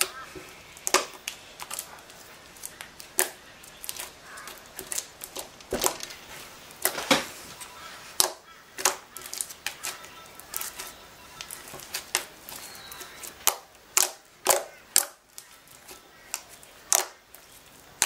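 Light blue slime being squeezed, folded and poked by hand, making irregular wet clicks and pops, several of them loud.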